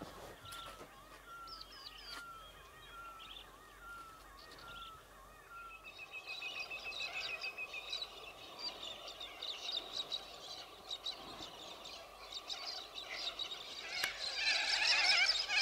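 Wild birds calling: one bird repeats a short call about twice a second for the first several seconds, then a chorus of many birds' calls takes over and grows louder near the end.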